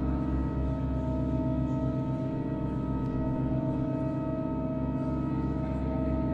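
Pipe organ holding a long, unchanging chord of many steady tones, with a regular wavering beat in the low notes.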